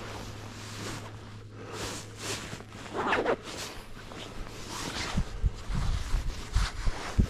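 Footsteps in snow: a series of crunching swishes, with a few low thumps near the end.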